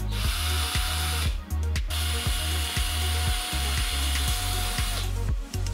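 Cordless drill-driver running twice: a short run of about a second, then a longer steady whine that winds down and stops near the end. Background music with a steady beat plays throughout.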